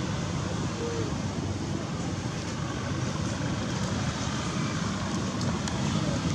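Steady outdoor background noise with a low rumble, even in level throughout, with no distinct calls or impacts standing out.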